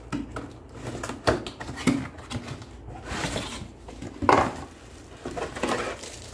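A cardboard box is opened by hand: the flaps scrape and are pulled back, and the plastic-wrapped jar of a small juicer is lifted out. There are several sharp knocks, the loudest a little over four seconds in, with rustling handling noise between them.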